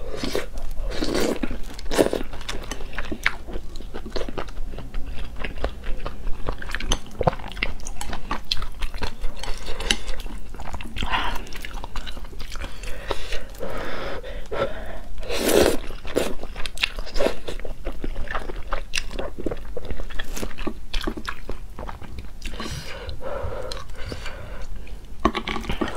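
Close-miked eating of luosifen rice-noodle soup: slurping up noodles and chewing with wet mouth sounds and crunchy bites, in a steady run of clicks and short slurps.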